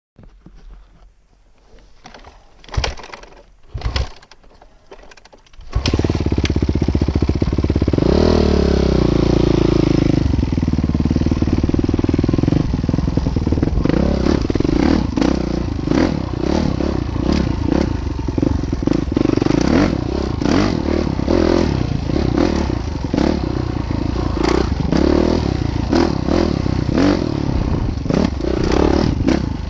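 A train crossing a bridge: a couple of sharp knocks, then from about six seconds in a loud, steady engine drone with wheels clattering rapidly over the rails.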